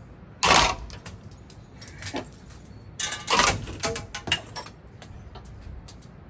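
Rusty metal rings being thrown and clattering as they land: a loud clank about half a second in, a lighter knock near two seconds, then another clank about three seconds in with brief metallic ringing and a few light knocks after it.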